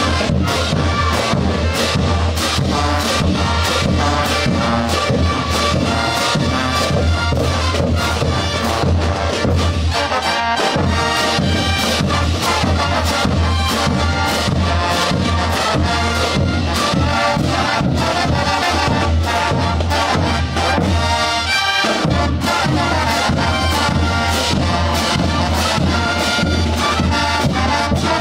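Bolivian brass band playing a morenada: trumpets, trombones and sousaphones over a steady beat of bass drums and crash cymbals.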